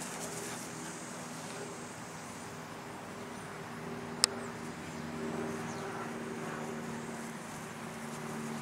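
Steady hum of a distant engine, with a single sharp click about four seconds in.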